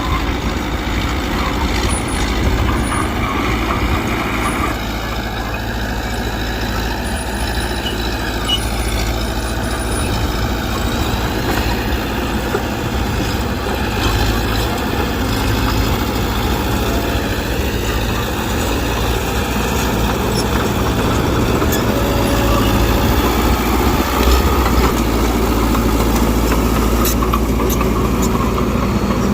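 Mitsubishi BD2G bulldozer's diesel engine running under working load, its pitch rising and falling with the throttle, with a few sharp clanks near the end.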